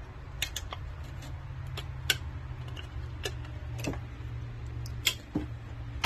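Hand-handling sounds: scattered light clicks and taps, about eight in all, from working the RV's winterizing bypass valve and antifreeze siphon hose, over a steady low hum.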